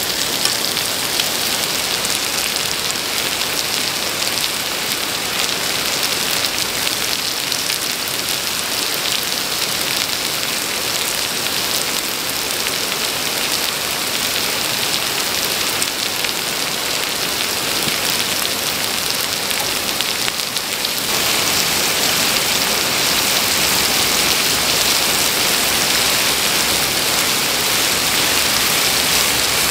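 Pork belly and enoki mushrooms sizzling on a hot griddle pan over a gas burner: a dense, steady crackling hiss of fat frying, which gets louder about two-thirds of the way through.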